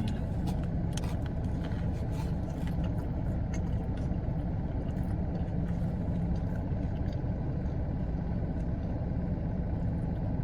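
Steady low rumble of an idling car engine, with a few faint clicks in the first few seconds.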